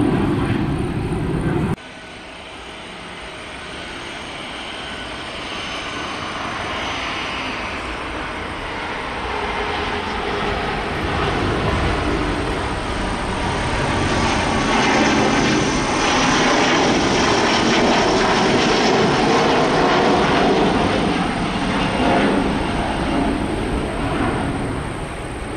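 Jet engines at take-off power. For the first couple of seconds a Boeing 737-800 is climbing out; then, after a sudden cut, an Airbus A330 twin-jet takes off, its engine roar building to a peak about two-thirds through and easing slightly near the end.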